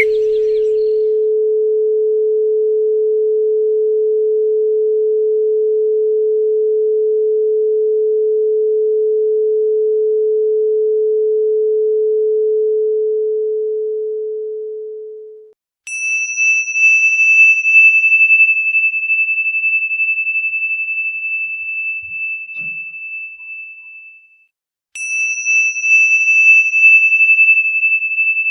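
A steady pure 432 Hz tone that fades out about halfway through. Then a high ringing tone starts twice, each time with a sharp, bright onset and a slow fade, about nine seconds apart.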